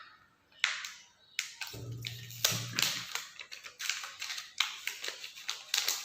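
A package being opened by hand to get at an Arduino Uno board: a run of sharp clicks, snaps and crinkles of the packaging.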